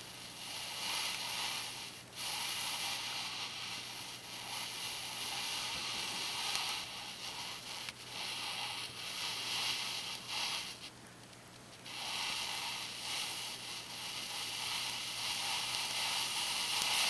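Gas flame of a long-nosed butane lighter hissing as it is held to a heap of ammonium dichromate to light it. The hiss drops out briefly a few times, once for about a second in the middle.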